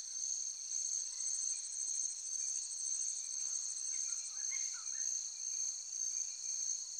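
Steady chorus of insects trilling, a high continuous sound with a fine pulse, with a few faint chirps about four to five seconds in.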